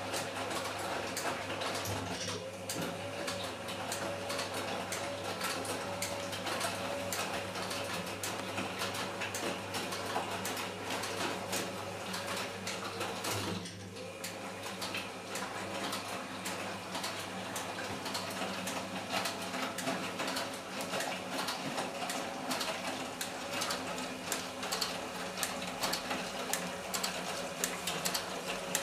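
Small Eudora Goldkind EU 340 washing machine washing: a steady motor hum with a dense fine rattle of ticks, the motor tone breaking off briefly about two seconds in and again about thirteen seconds in.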